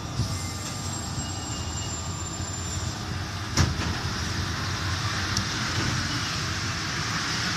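Running noise of an NS-93 rubber-tyred metro train heard from inside the car as it moves along a station platform, a steady rumble with a faint high whine. A single sharp knock comes about three and a half seconds in.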